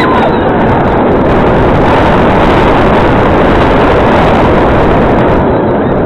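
Onboard a Bolliger & Mabillard stand-up steel roller coaster at speed: a loud, steady rushing roar of wind and the train running on the track, easing slightly near the end.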